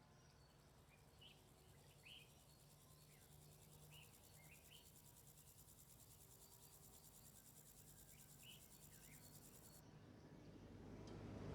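Faint, high-pitched, rapidly pulsing buzz of a grasshopper stridulating, rubbing its toothed hind leg against its wing, which cuts off suddenly about ten seconds in. A few faint bird chirps come through, and a low rumble swells near the end.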